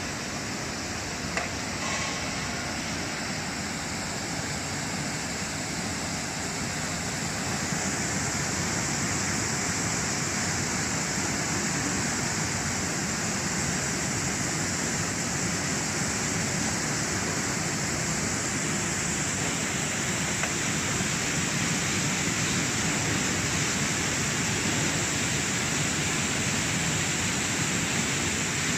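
Bubble-type vegetable washing machine running: a steady rush of churning, bubbling water. A higher hiss strengthens about eight seconds in.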